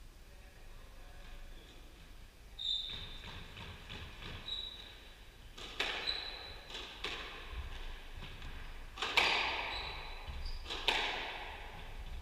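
Squash rally: a ball struck by rackets and smacking off the court walls, four or five sharp cracks that echo in the court, mixed with short high squeaks of shoes on the wooden floor. The first couple of seconds are quieter, before the hitting starts.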